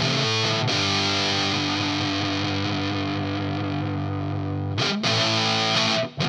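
Electric guitar played through a Sola Sound MKIV Tone Bender fuzz pedal with '76 Park Fuzz voicing, heavily fuzzed. A chord rings and sustains for about four seconds, then it stops briefly and new chords are struck, with another short break near the end.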